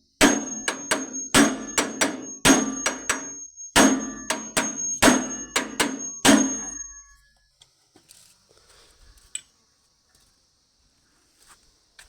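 Hammer striking metal on a chaff cutter: about twenty quick, ringing blows over some six seconds, then it stops, leaving only a few faint knocks.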